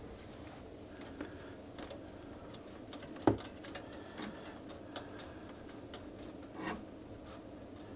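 Light clicks and ticks of Wi-Fi antenna cable connectors being fitted by hand to a motherboard's rear I/O panel. A sharper click comes about three seconds in and another near the end, over a faint steady hum.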